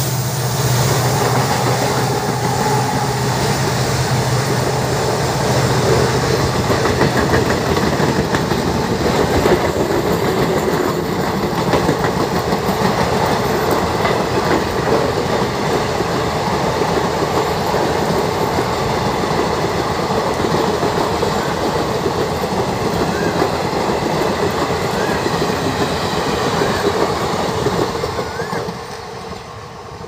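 Diesel-hauled passenger train passing at speed. The locomotive's low engine hum fades within the first few seconds, then a long rake of coaches rushes past with the wheels clattering on the rails. The noise falls away near the end as the last coach goes by.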